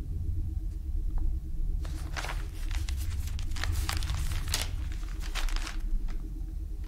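Low, steady rumbling hum of a background ambience, with a few seconds of rustling, crinkling noise over it in the middle.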